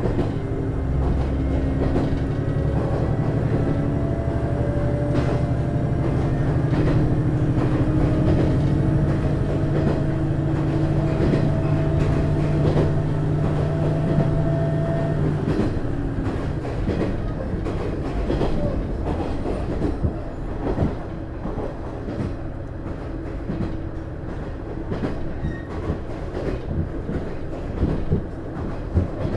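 Inside a JR East KiHa 110 diesel railcar under way: its DMF14HZA diesel engine pulls with a slowly rising note for the first half, then its note drops away, leaving the car's running hum and the wheels clicking over rail joints.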